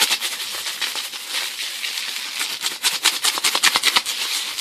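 Strontium nitrate powder and small chunks rattling inside a plastic jar shaken hard through a 40 mesh sieve screen. It is a dry, rapid rattle at several shakes a second, easing a little in the middle.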